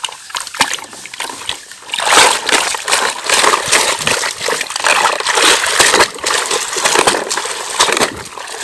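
Water sloshing and splashing as a toy excavator is washed by hand, quieter at first and then continuous and louder from about two seconds in.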